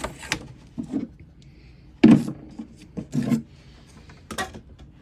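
Handling noise as a power cord is fed through the cord fitting on an air compressor: a few short knocks and rubs, the loudest about two seconds in.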